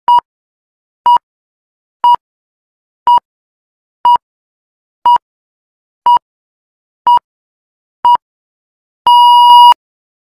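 Electronic countdown timer beeping: nine short, high beeps once a second, then one longer beep near the end that signals the start of the exercise set.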